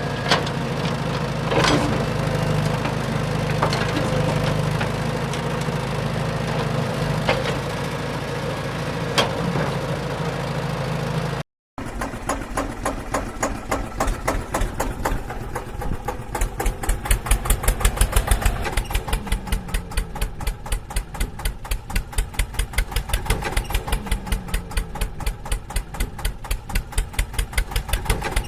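A steady engine drone with a few sharp clicks. After an abrupt cut about eleven seconds in, an engine chugs at idle with an even beat of about five pulses a second, like a diesel tractor.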